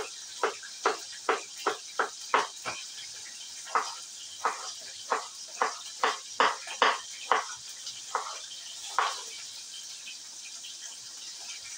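Knife chopping salad vegetables finely on a cutting board: a run of sharp knocks, two or three a second, with a short pause about three seconds in, stopping about nine seconds in.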